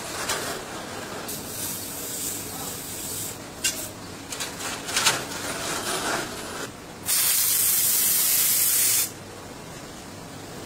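A loud, steady hiss of escaping compressed air lasts about two seconds and then cuts off sharply. Before it come scattered metal knocks and rubbing as truck tire casings are handled on their rims.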